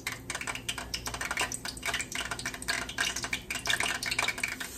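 Flour-dredged cube steak frying in hot vegetable oil in a skillet: a dense, irregular crackle of spatters.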